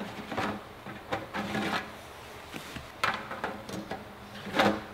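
A cloth rubbing over a stainless steel toaster's housing, with scattered light knocks and clicks of the toaster and its parts being handled, the clearest about three seconds in and near the end.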